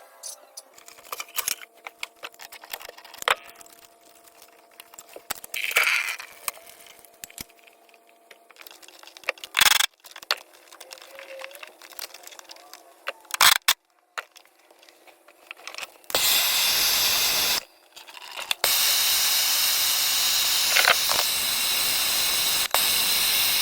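Scattered metal clicks and knocks of tools working on a hose bib. About two-thirds of the way through, a loud steady rush of water from the newly installed Woodford hot and cold hose bib begins; it stops for about a second and then runs on, as the new fitting is tested for leaks.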